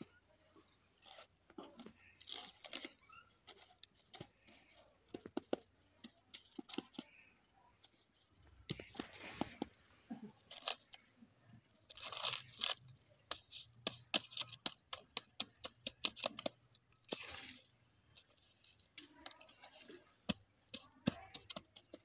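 Dry leaves and ash crackling and crunching as leaf-wrapped dough balls are handled and turned with a stick on a smouldering dung-cake fire: many irregular small clicks, with a few louder rustles.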